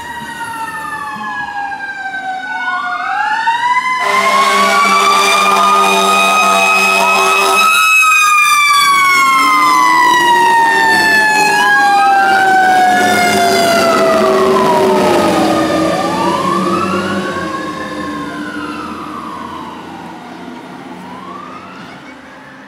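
Fire apparatus sirens on a 2005 Sutphen pumper and a Ford F250 chief's pickup responding. An electronic wail sweeps up and down throughout, and a mechanical Q siren winds up, then coasts down in one long falling tone. A steady air-horn blast sounds from about 4 to 8 seconds in. The sirens are loudest in the middle as the rigs pass, then fade as they move away.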